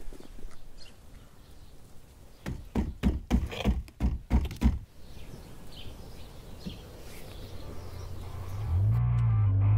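A quick run of about seven heavy thumps over two seconds, then music begins near the end.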